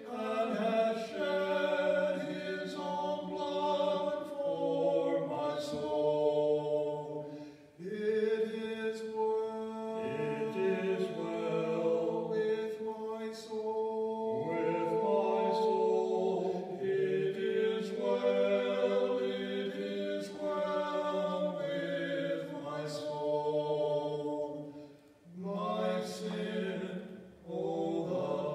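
Two men singing a hymn together, phrases of long held notes with a few brief pauses for breath.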